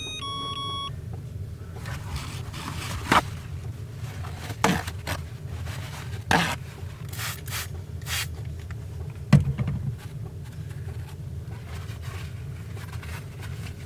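Rubbing and scraping sounds of things being handled at close range, with a few sharp knocks, the loudest about nine seconds in, over a steady low hum. A short electronic beep ends just under a second in.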